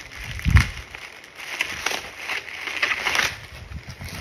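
Packaging being handled and unwrapped: irregular crinkling and rustling, with a dull thump about half a second in.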